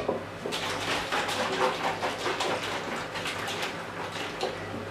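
Irregular rustling and light clattering of ingredients and kitchen things being handled over a mixing bowl, busiest in the first three and a half seconds.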